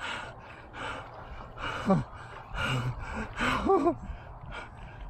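A man breathing hard with gasps about once a second as he struggles to keep his balance on a wobbly paddle board. Two short high whine-like calls come between the breaths.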